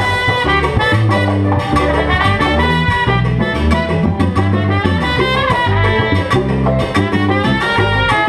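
Salsa band playing live: trumpet lines over congas, bass and piano in a steady dance groove.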